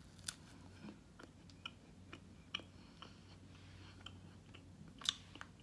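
Quiet chewing of a bite of sugar-glazed puff pastry, heard as scattered soft mouth clicks at an uneven pace, with a sharper click just after the start and another near the end. The pastry is kind of stale.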